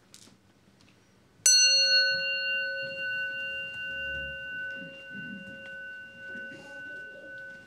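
A Buddhist bowl bell struck once about a second and a half in: a sharp strike, then a long ring with several high overtones that fades slowly and is still sounding at the end.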